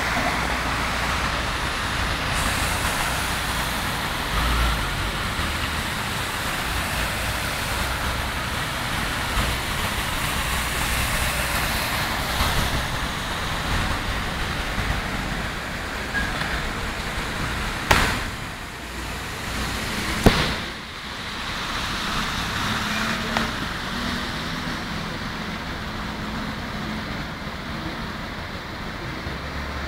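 Cars driving through floodwater, their tyres spraying and hissing steadily through the standing water. Two sharp knocks come a little past the middle, about two seconds apart.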